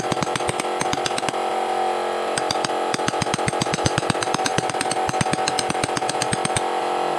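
Power tool running with a steady whine, with rapid clicking or chattering throughout as it works wood.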